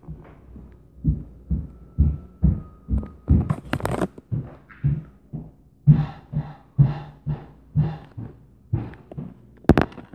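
Heavy stomping footsteps on the floor above, heard through the ceiling as dull thumps about twice a second in an uneven rhythm.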